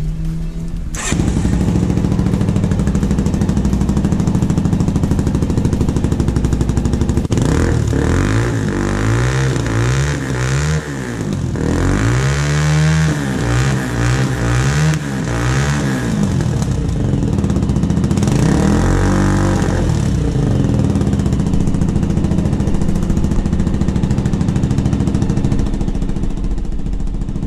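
2021 Hurricane 250 sport motorcycle's 250 cc engine starting about a second in, then idling, with throttle blips that rise and fall in pitch between about 7 and 16 seconds and once more near 19 seconds.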